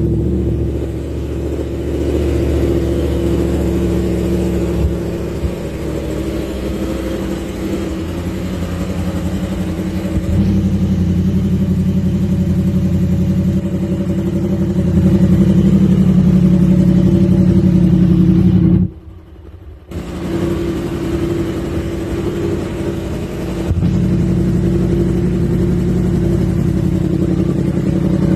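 2018 Yamaha R1's crossplane inline-four engine idling steadily, just after being started; the sound briefly drops away for about a second about two-thirds of the way through, then comes back.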